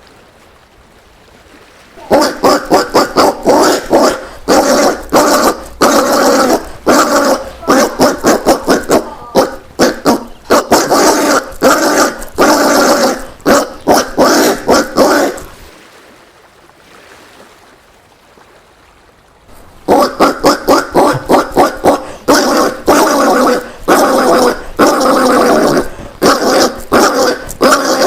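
Collared peccary (caititu) calling: a fast run of short, harsh grunt-like calls, several a second, in two long bouts with a lull of about four seconds between them.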